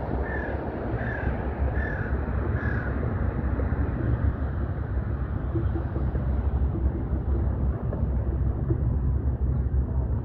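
A crow cawing four times, about a second apart, in the first three seconds, over a steady low rumble of wind on the microphone.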